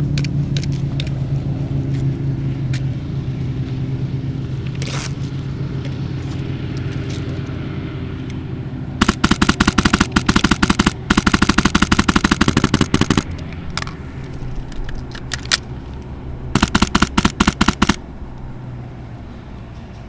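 Airsoft rifle firing on full auto: one long rapid burst of about four seconds starting about nine seconds in, a few single shots, then a second, shorter burst near the end. A low steady rumble runs under the first half.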